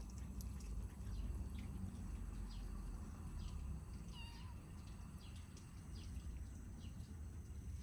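Kittens eating small fish, with faint, irregular crunching and clicking as they chew, and one short wavering kitten mew about four seconds in.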